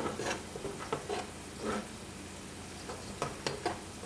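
Wooden spoon stirring butter sauce in a saucepan, with several short scrapes against the pan over a steady low sizzle.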